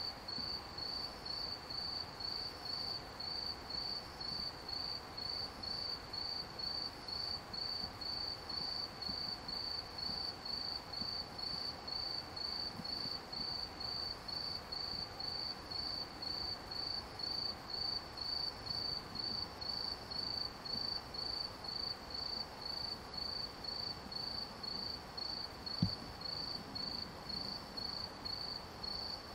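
A cricket chirping steadily with short, high-pitched chirps, about two a second. A single thump near the end.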